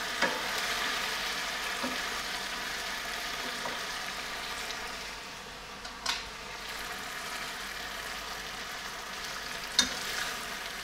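Chicken pieces and chopped onion sizzling steadily in a sauce in a nonstick frying pan, with utensils knocking against the pan three times: just after the start, about six seconds in, and near the end.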